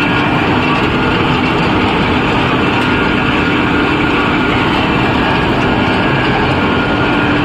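Sawdust pellet production line machinery running: a loud, steady mechanical din with a constant hum.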